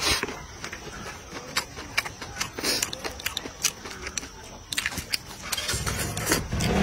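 Close-miked eating: a mouthful of rice and stir-fry shovelled in from a plate with chopsticks, then chewed with many sharp, wet mouth clicks. A low hum swells in near the end.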